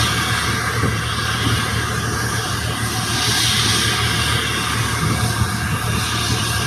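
Turbofan jet engine running steadily under test, a loud, even rushing noise with a faint steady whine.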